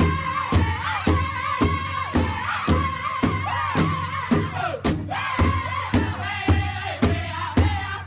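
Music with a steady beat, about two beats a second, and a melody line over it.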